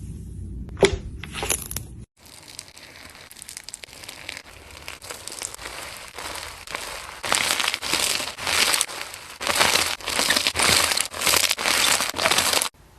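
Slime being squeezed and worked by hand, crackling and crunching. After a cut about two seconds in, it starts quietly and grows into a run of loud, regular squeezes, roughly one or two a second, in the second half.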